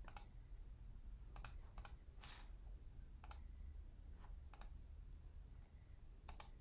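Faint, scattered clicks of a computer mouse, about eight or nine short clicks with a pair in quick succession near the end.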